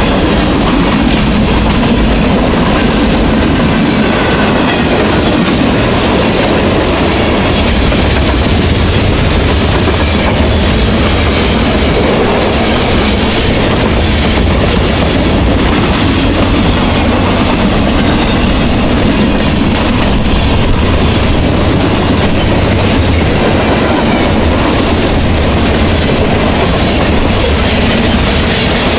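Freight cars of a mixed manifest train rolling past at speed: a steady, loud rumble and clatter of steel wheels on the rails.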